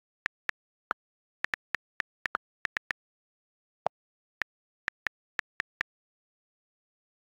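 iPad on-screen keyboard key clicks: a quick, uneven run of about nineteen short ticks as a phrase is typed, with one deeper click about four seconds in. The clicks stop about six seconds in.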